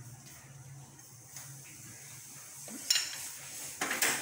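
Kitchen utensils clinking twice, about a second apart near the end, over a faint steady low hum.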